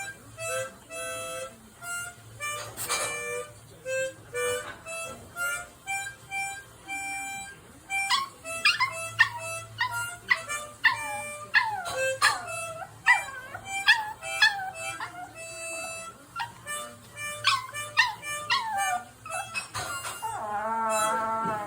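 Harmonica playing a slow melody of held notes, with a Pomeranian puppy howling along in high, bending howls and yips from about eight seconds in. A long wavering howl comes near the end.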